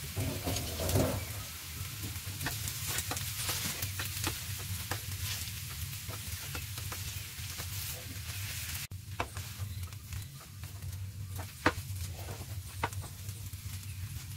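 Boiled potatoes being mashed and stirred with a spatula in a hot pan of fried onions: a light sizzle under repeated scrapes and taps of the spatula against the pan, one louder tap near the end.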